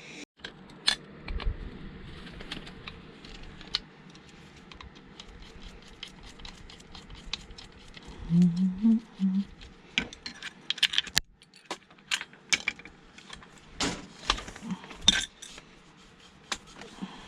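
Irregular metal clinks, taps and rattles of hand tools against metal parts as a device is taken apart by hand, with louder clusters of clinks near the middle and the end.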